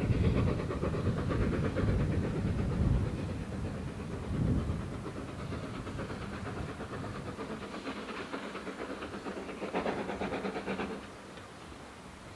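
A train moving away out of sight. Its low rumble fades over the first few seconds, and a rhythmic rail clatter with some hiss carries on more faintly until it dies away about eleven seconds in.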